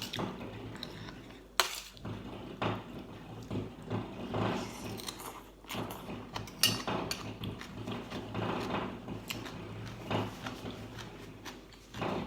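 A person eating papaya salad with chicken feet: irregular biting and chewing, with a spoon or fork now and then clinking against the plate.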